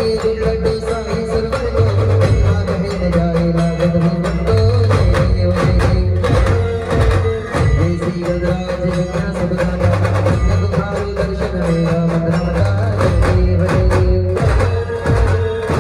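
Band music played loud through a large loudspeaker rig: an aarti melody in held notes over a heavy bass line, with two drums beaten with sticks in a dense, driving rhythm.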